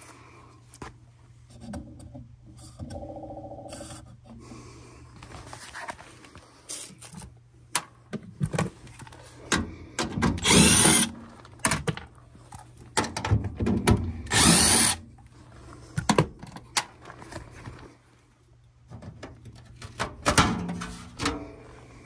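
Cordless drill-driver running in short bursts, the two longest about four seconds apart, among clanks and rattles from a sheet-metal furnace door panel being handled. A steady low hum sits underneath.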